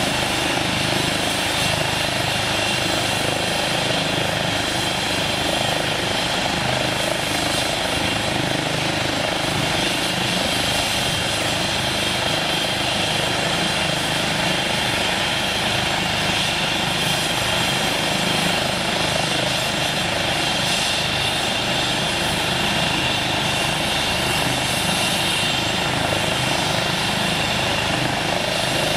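Eurocopter EC135 trauma helicopter running steadily on the ground, its turbines and rotor giving an even rumble with a high whine on top.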